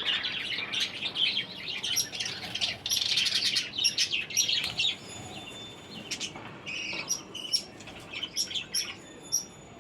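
A flock of caged pet birds chirping and chattering, with many short high calls overlapping. The calls are densest in the first half and thin out to scattered chirps after about five seconds.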